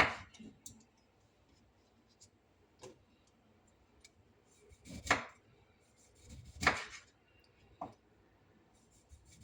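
A kitchen knife slicing lemons: a few separate cuts about a second or two apart, each a short sharp knock.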